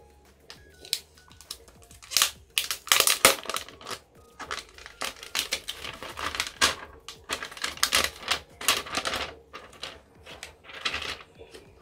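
Thin plastic protective film being peeled off a smartphone and handled: irregular crinkling and crackling, getting going about two seconds in.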